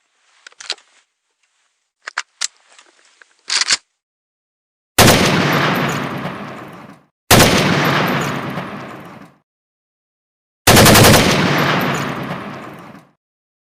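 Gun sound effect: a few sharp mechanical clicks and a short rattle, then three bursts of automatic gunfire, each fading away over about two seconds.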